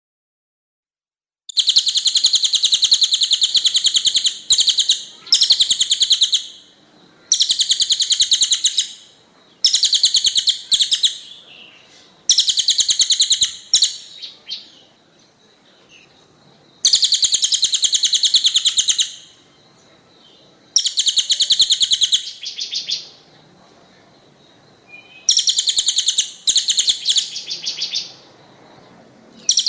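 Songbird masteran (tutor) recording: bursts of dense, rapid, harsh chattering notes, each lasting one to two and a half seconds, repeated with short pauses. The recording starts after a second and a half of silence.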